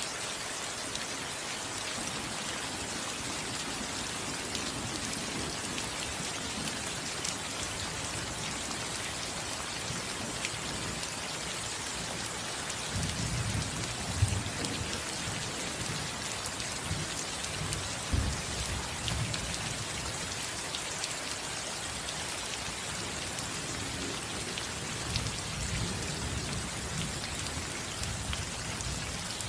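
Steady rain falling on a roof, with low rumbles of thunder rolling in about halfway through and again near the end.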